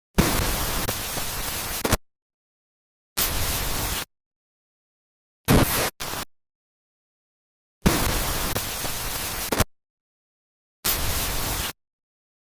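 Bursts of static-like hiss that start and stop abruptly: a long burst of about two seconds, a shorter one, then two quick blips, with the same pattern repeating about every eight seconds as a looped sound effect.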